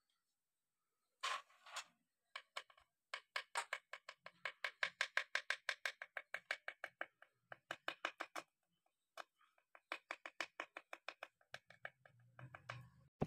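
Light, rapid metallic clicking, about four or five clicks a second with a couple of short pauses, from hand work at the bolts of a motorcycle engine's crankcase.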